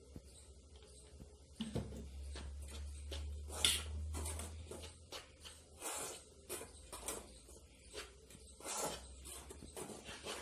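Metal spoon stirring oil into flour in a stainless steel bowl: a run of short, irregular scrapes starting about two seconds in, over a low steady hum.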